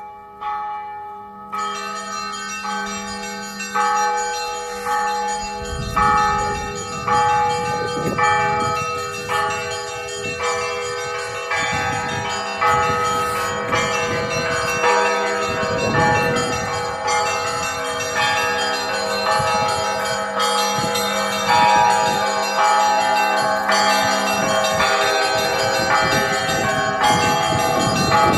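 Russian Orthodox church bell ringing on a belfry of eight bells: several bells struck in quick, overlapping strokes, their tones ringing on and blending, with a deep tone held beneath for long stretches.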